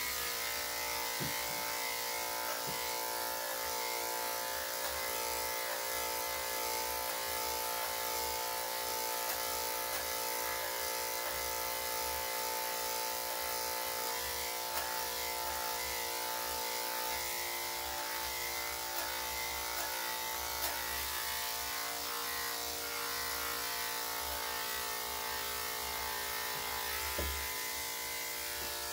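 Corded electric dog grooming clippers running steadily with an even hum as they clip a dog's body coat.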